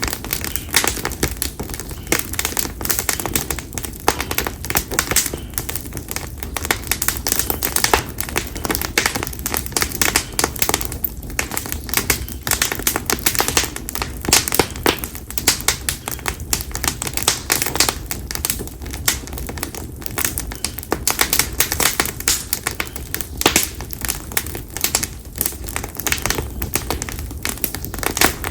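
Konara oak firewood crackling in a campfire: a dense, irregular run of sharp pops and snaps, many per second, over the steady low sound of the fire.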